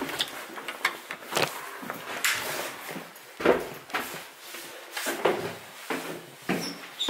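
Irregular knocks, bumps and scrapes, a few every second, with the loudest knock about three and a half seconds in.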